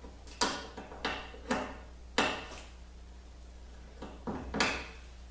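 A notched scraper spreading thickened epoxy on the scarf joint of ash boards: six short scrapes in two groups, each starting sharply and fading quickly.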